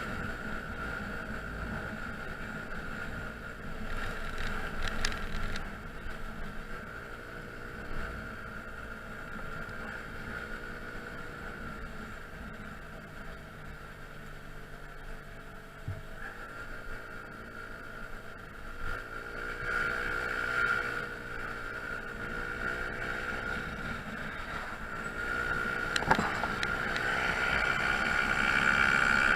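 Honda Zoomer scooter's 49cc four-stroke single-cylinder engine running on the move. The engine pitch rises and falls several times as the rider speeds up and eases off, with wind buffeting the microphone.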